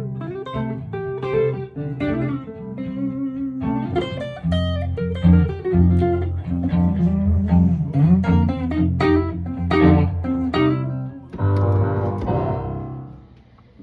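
Electric guitar played through a guitar amplifier: a run of single-note melodic lines with some bent notes. About eleven seconds in it gives way to a chord on a stage keyboard's piano sound, which rings out and fades.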